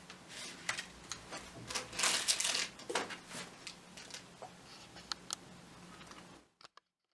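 Crepe paper rustling and crinkling as petals are handled, with scattered small clicks and taps; loudest about two seconds in, then quieter, and cutting off suddenly near the end.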